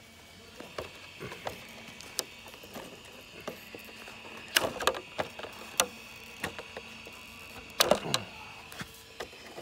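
Hands handling an RC buggy's plastic body and chassis: scattered clicks and taps, with louder knocks and rattles about halfway through and again near the end.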